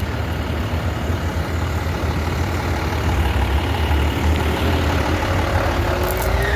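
Heavy engine idling steadily, with a thin whine that rises slowly in pitch over the last couple of seconds.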